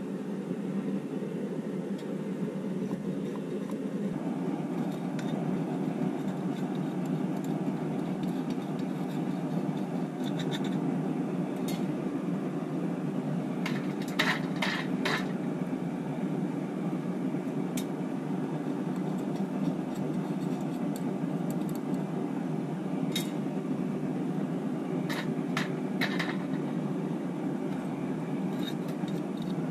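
Metal scraping and clinking as dross is knocked out of a steel aluminium-melting crucible into a steel pan, with a cluster of sharp scrapes about halfway through and another near the end. A steady low rushing noise continues underneath.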